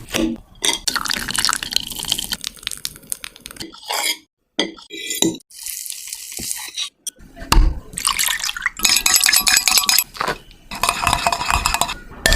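Utensils clinking and scraping against a mixing bowl, with wet liquid sounds, in several short stretches broken by brief silences.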